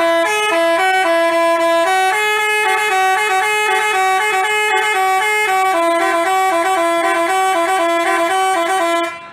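Basuri 'telolet' multi-tone bus horn playing a quick tune of stepped notes, several horn tones sounding together, cutting off suddenly near the end.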